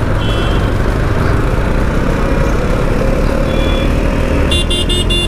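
Yamaha MT-15's 155 cc single-cylinder engine running as the bike accelerates slowly through traffic, under a steady low rumble. Near the end a vehicle horn sounds in several quick beeps.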